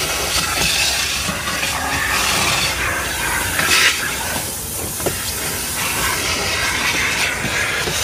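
Car wash vacuum hose sucking air: a steady, loud hiss that wavers as the nozzle moves and thins for about a second near the middle, with a light knock.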